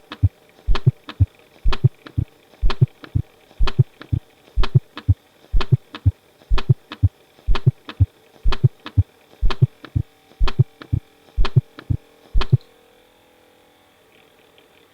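Recorded heart sounds with a fourth heart sound (S4): an extra low beat just before the first heart sound in each cycle, an atrial gallop heard when the atrium contracts into a stiff, non-compliant ventricle, and always pathological. The beats repeat steadily at about one cycle a second and stop about twelve and a half seconds in, leaving a faint hum.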